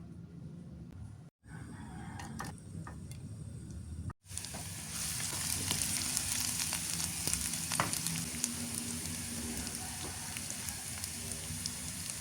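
Vegetables sizzling as they are stir-fried in a hot pan, with the occasional tick of stirring. After two short, quieter clips of kitchen sounds, the sizzle becomes loud and steady about four seconds in.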